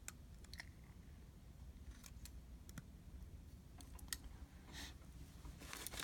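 Faint, scattered clicks and light taps of a fountain pen and an ink bottle being handled while the pen is refilled, over a low room hum.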